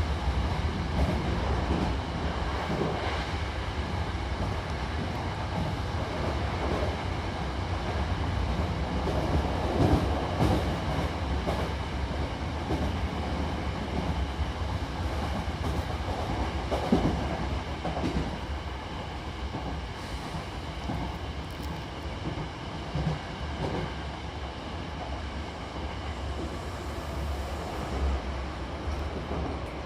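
Hankyu Imazu Line electric train running between stations, heard from inside the carriage: a steady rumble of wheels on rail with a few louder knocks over rail joints, easing off somewhat in the second half.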